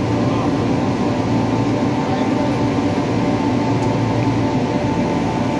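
Steady, loud machinery hum with several held tones, unchanging throughout: running mechanical equipment.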